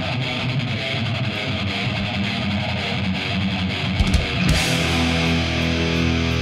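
Instrumental passage of a heavy rock or metal track: distorted electric guitars playing, then a few drum hits about four seconds in and a long held, ringing chord.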